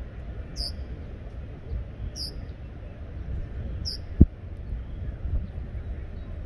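Wind rumbling on the microphone, with a bird's short, high, falling chirps repeating about every second and a half. A single sharp thump a little past four seconds is the loudest sound.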